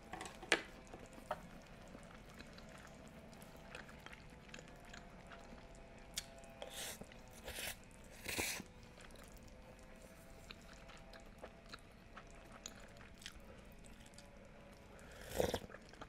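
Close-miked eating sounds: soft chewing with small wet clicks of the mouth, and short slurps of noodles and soup, several about seven to eight and a half seconds in and one louder one near the end.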